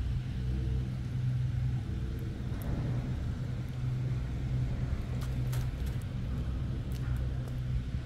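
A steady low mechanical hum, with a few faint clicks in the second half.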